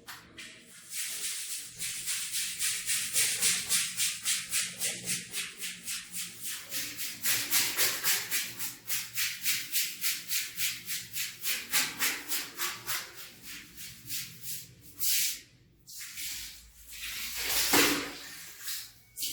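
A brush scrubbing a rug in quick, even strokes, about four a second. The scrubbing stops about two thirds of the way through, and a few separate short hissing sounds follow near the end.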